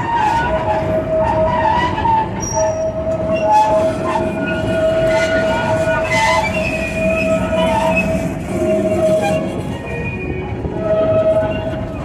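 Theme-park train rolling along its track, heard from aboard: a steady rumble of the cars with a high wheel squeal that drops out and returns several times.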